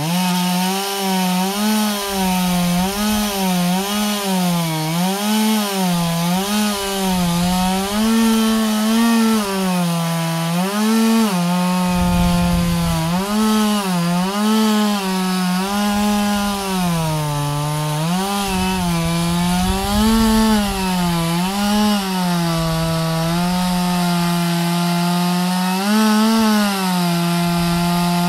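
Chainsaw engine running, its pitch rising and falling again and again as the throttle is worked, then holding steadier near the end.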